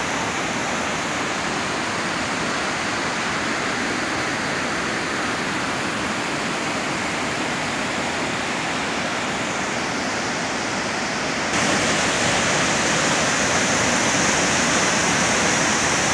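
Waterfall rushing: a steady roar of falling water. About two-thirds of the way through it suddenly becomes louder and brighter.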